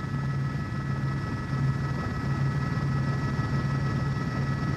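Steady mechanical drone: a low hum that pulses unevenly, with several steady high whining tones above it.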